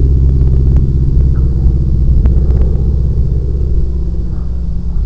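North American T-6 Texan's Pratt & Whitney R-1340 radial engine droning overhead, a steady, loud engine note that slowly fades as the plane moves away.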